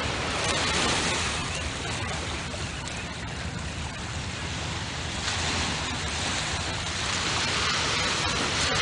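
Steady rushing of small waves washing on a sandy beach, a little louder about five seconds in.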